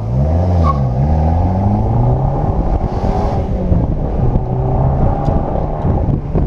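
Car engine accelerating, its pitch rising and dipping twice over the first couple of seconds, then running at a steadier pitch.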